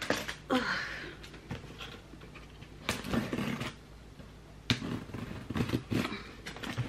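Household handling noise: a series of knocks and rustles as objects are moved and set down, with a brief sliding tone about half a second in.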